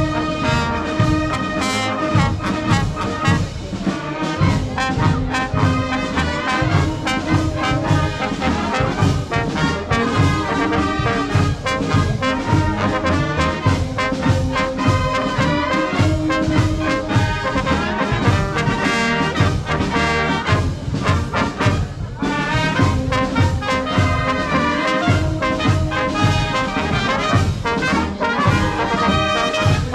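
Brass band playing, with trumpets and trombones over a steady beat.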